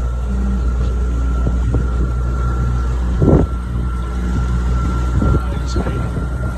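Boat engine running with a steady low drone and a thin constant whine above it; a short thud about three seconds in.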